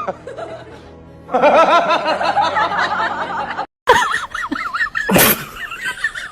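Music with a person snickering and laughing, broken by a sudden cut about four seconds in.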